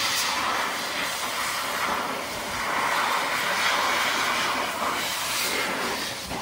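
Pet blower dryer blowing air through its hose nozzle into a cat's wet fur: a steady rushing hiss that swells and dips a little in level.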